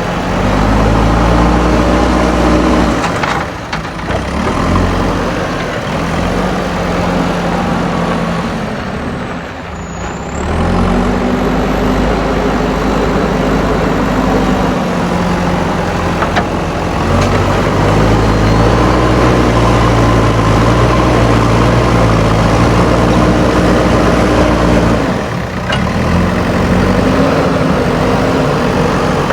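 JCB backhoe loader's diesel engine running under load, revving up and holding for several seconds at a time, then easing off briefly about three, ten and twenty-five seconds in.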